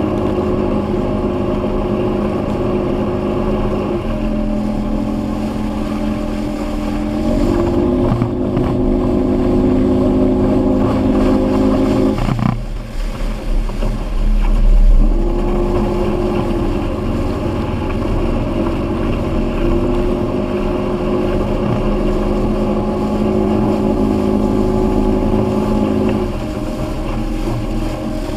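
Evinrude outboard motor running at speed while towing a tube, with wind and water rushing past. The engine note shifts pitch a few times and falls away briefly about halfway through before coming back up.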